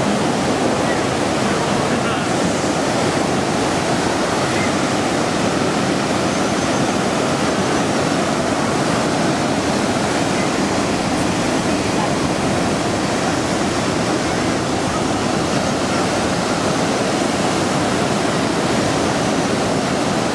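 Lower Bassi Falls waterfall rushing, a steady, even roar of falling water that does not change.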